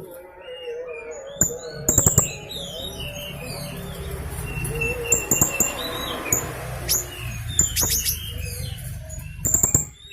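Blue-crowned hanging parrot (serindit) calling in sharp, very high chirps and clicks mixed with short warbled glides, over a low steady rumble that fades out near the end.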